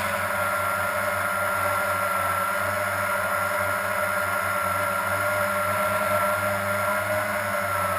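Blade 350 QX quadcopter's electric motors and propellers running in a steady high-pitched whine and hum, the pitch dipping slightly near the end.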